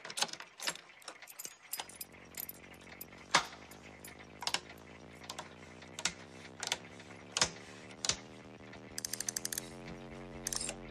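A series of sharp clicks as toggle switches and breaker levers on an old electronics control panel are thrown, one every half second to second. About two seconds in, a steady low hum comes in and holds, growing louder near the end, with a quick run of rapid ticks about nine seconds in.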